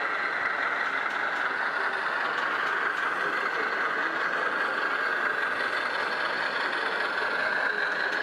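Steady truck diesel-engine sound from a radio-controlled Scania 143 model truck, played by its onboard sound unit through a small speaker, so it sits high and thin, with no deep rumble.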